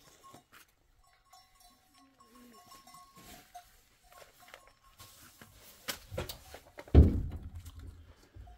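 Goats calling faintly, with light tinkling like small animal bells. About seven seconds in, a loud thump followed by a low rumble.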